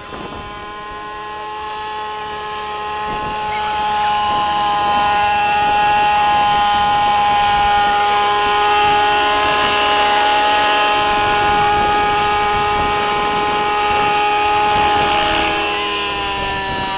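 Radio-controlled model aircraft's motor running at a steady high pitch, growing louder over the first few seconds as it flies close, with its pitch and level dropping slightly near the end.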